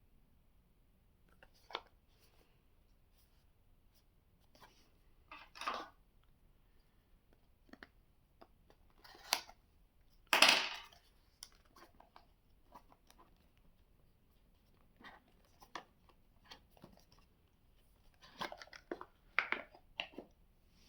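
Packaging of an earbud box being handled and opened by hand: scattered clicks, scrapes and short rustles of cardboard and plastic. The loudest is a half-second tearing rustle about ten seconds in, with a quick cluster of rustles and clicks near the end.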